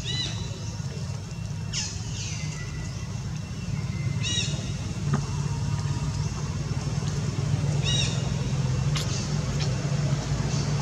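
Short, high-pitched squeaky calls, typical of a baby macaque crying, come about every four seconds; one near two seconds in slides down in pitch. Beneath them runs a steady low engine-like hum.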